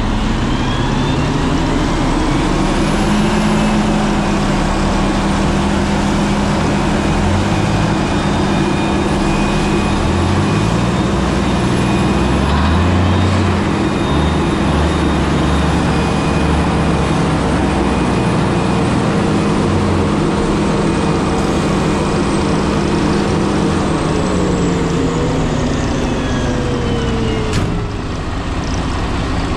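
Tractor engine running close by, with a Claas Jaguar forage harvester running just ahead, a steady loud mechanical drone with a high whine over it. Near the end the engine note drops, then rises briefly.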